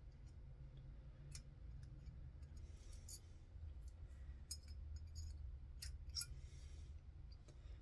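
Light metallic clicks and scrapes of a small steel punch and firing pin against a Marlin Model 93 rifle bolt as the front firing pin is pushed forward into the bolt. There are about half a dozen scattered clicks, the loudest about six seconds in, over a low steady hum.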